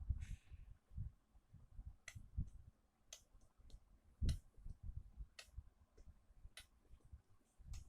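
Handling noise while a BM-800 microphone is being set up: scattered sharp clicks and low bumps at an uneven pace, the loudest a little past halfway.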